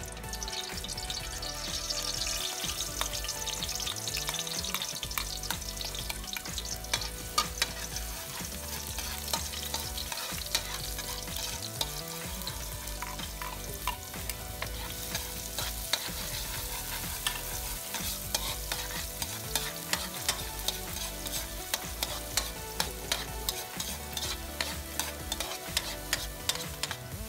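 Oil sizzling in a metal wok while a metal spoon stirs and scrapes, with many sharp clicks against the pan; chopped onion and garlic are tipped in partway through and fry in the oil.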